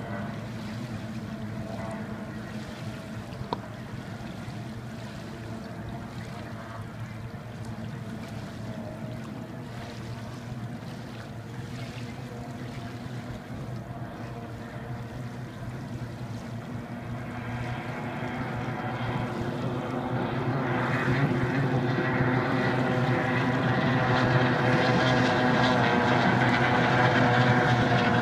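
Racing hydroplane engines running steadily out on the course. The drone grows louder and brighter over the last ten seconds or so as a boat comes nearer.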